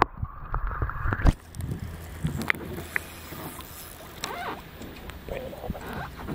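River water splashing and lapping against a camera held at the surface: muffled at first while the camera is underwater, then a sharp knock about a second in, followed by open, noisy water slosh with small ticks and splashes.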